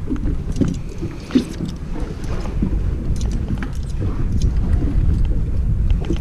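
Low rumble of a fishing boat on the water, with wind on the microphone and scattered light knocks.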